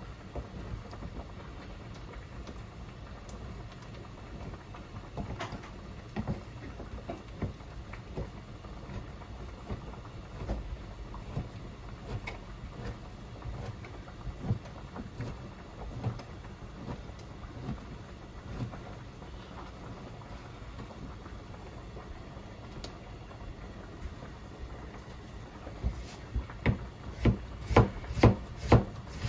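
Kitchen handling sounds: scattered soft taps and knocks over a low steady background, then a run of sharper knocks, about two a second, near the end.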